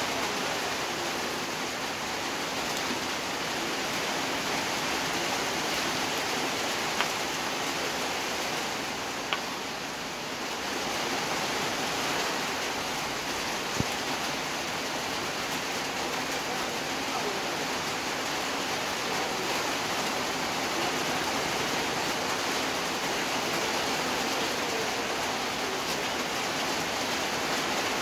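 A large pan of rosogollas boiling hard in sugar syrup over a burner: a steady rushing, bubbling noise, with a few light clicks of a ladle against the pan.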